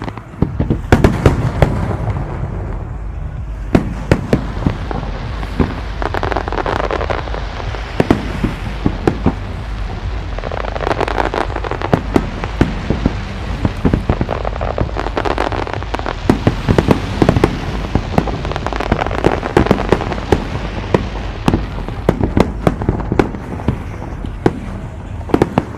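Aerial fireworks display: a continuous barrage of sharp bangs and crackles over a steady low rumble.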